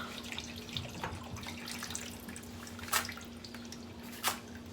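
Kitchen tap running water over a plantain as it is peeled by hand, with three sharp knocks and a faint steady hum underneath.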